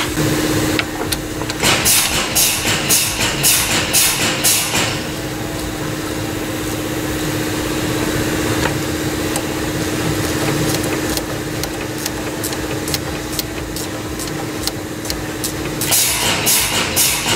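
Hand ratchet turning out a small 10 mm bolt in quick, even strokes, about three a second, in two runs with a pause between, over a steady background hum.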